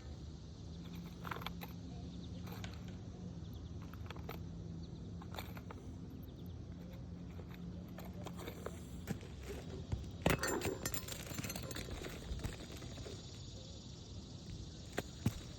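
Scattered light knocks, scrapes and rustles of an asphalt shingle being handled and slid into place on a roof, with a louder clatter of knocks about ten seconds in. A faint steady low hum sits underneath for the first half.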